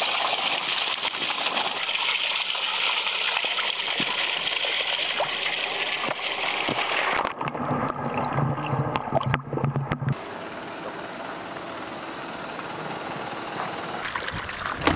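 Water gushing from a bucket onto wet riverbank gravel as amago are poured out for release. About seven seconds in, it gives way to a muffled underwater sound with a low hum and a few sharp clicks, and then to a quieter steady water noise.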